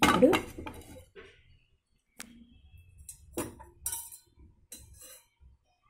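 Metal cookware and utensils knocking and clinking about four separate times, sharp single hits a second or so apart, as a frying pan and steel spoon are handled on a gas stove.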